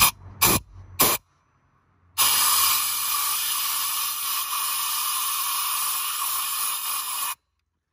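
Compressed air from a portable air tank rushing through a blow gun: three short blasts in the first second or so, then a steady hiss of about five seconds that cuts off suddenly. The air is blowing rust debris out of a diesel injector seat.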